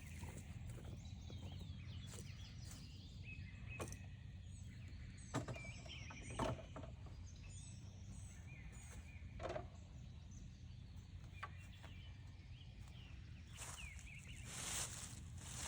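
Quiet outdoor background with faint high chirps, a few light knocks and taps, and a short hissing rustle near the end.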